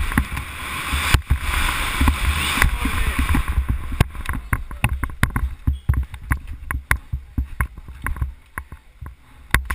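Downhill mountain bike descending a rough forest trail, heard from a helmet camera: a dense run of knocks and clatters from the bike's chain, suspension and tyres hitting roots and rocks, over a low rumble. Wind rushes over the microphone for the first few seconds.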